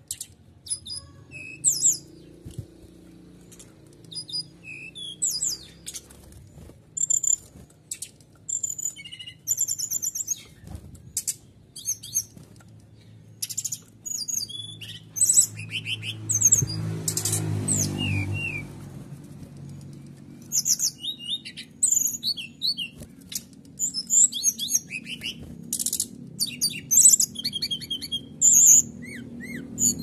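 Brown-chested jungle flycatcher singing in rapid bursts of high chirps and trills in canary-like phrases, one short phrase after another. A low rumble swells underneath about halfway through.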